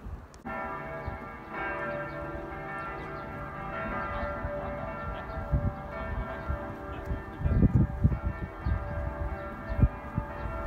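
Bells ringing, with sustained, overlapping tones and fresh strikes about a second and a half and four seconds in. Low buffeting thumps on the microphone come in under them, loudest near the end.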